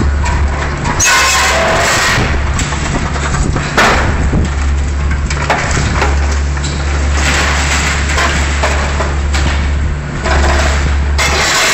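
Liebherr 944 demolition excavator's diesel engine running under hydraulic load, with intermittent crashing and scraping of steel and debris as it works at a steel girder, including a sharp bang about four seconds in.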